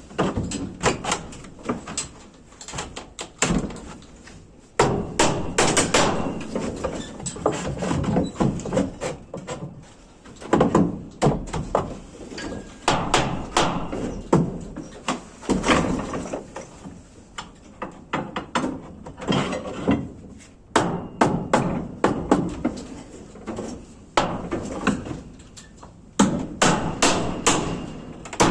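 Hammer blows on wood, coming in runs of quick strikes with short pauses between them.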